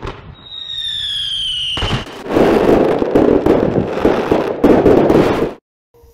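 Fireworks set off at close range: a whistling effect whose pitch slowly falls, then from about two seconds in a dense run of rapid bangs and crackling that stops abruptly near the end.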